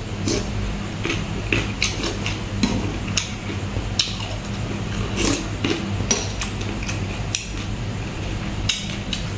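Close-miked eating sounds: a spoon clinking and scraping in a plastic tray, and wet chewing and lip-smacking of a raw salmon salad, heard as many short clicks over a low steady hum.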